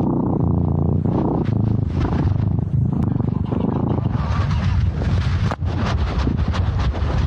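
Loud low rumbling and scratchy rubbing noise on the microphone of a tiny camera worn by a cat, as it moves against her fur and collar. Sharp clicks and knocks come thick from about halfway through.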